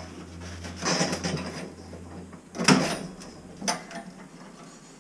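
Gloved hands handling and marking the copper water pipes above a water heater: a scraping rustle about a second in, a sharp clunk of the pipework near the middle, the loudest sound, and a shorter knock just after.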